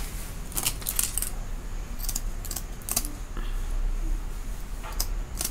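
Kitchen scissors snipping the fins off pieces of catfish: a run of short, sharp snips at an uneven pace.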